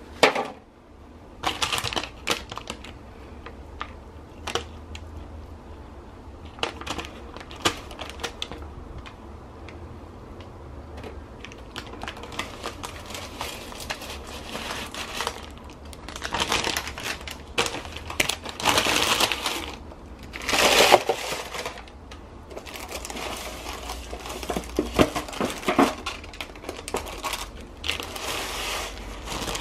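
Baking paper crinkling and rustling in irregular bursts as it is peeled off a large baked sandwich loaf, with small clicks of handling; the busiest, loudest stretch comes a little past halfway.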